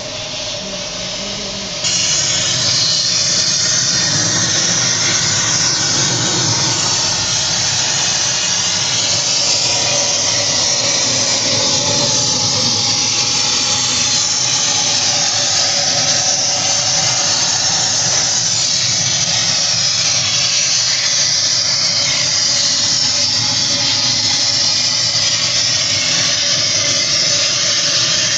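Steady, loud rushing hiss of air from a cleaning hose working dust out of an induction motor's housing during overhaul. It comes on abruptly about two seconds in.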